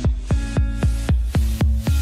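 Background electronic dance music with a fast, steady kick drum, about four beats a second, under held synth chords.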